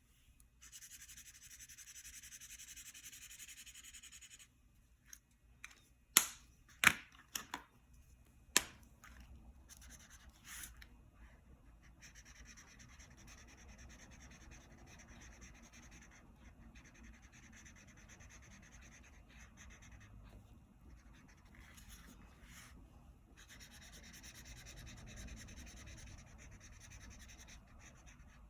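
Colouring strokes scratching and rubbing on paper, in long stretches with short pauses. There are a few sharp clicks about six to nine seconds in.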